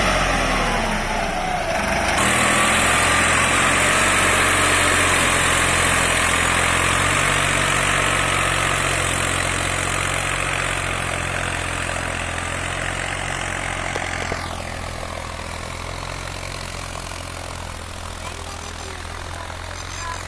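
Swaraj tractor's diesel engine running steadily under load while it pulls a disc harrow through the soil. Its pitch drops as it passes close in the first two seconds, and it grows steadily fainter as the tractor drives away.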